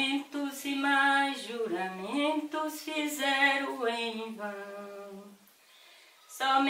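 A single voice singing a slow folk song unaccompanied, holding long notes. The phrase ends about five and a half seconds in, and the next begins just before the end.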